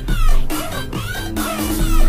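Dance music with a steady, strong beat and deep bass.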